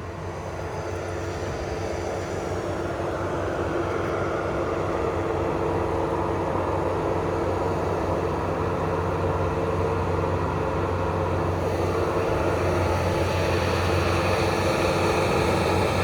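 Engine running steadily with an even hum, growing a little louder over the first few seconds and then holding.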